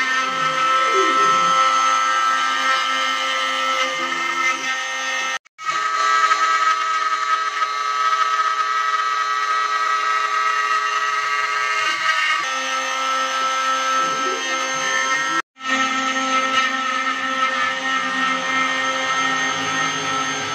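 CNC router's compact trim-router spindle running at speed, its bit cutting into the wooden sign board, with a steady high whine over a rough cutting noise. The sound drops out abruptly twice, for a split second each, about five and fifteen seconds in.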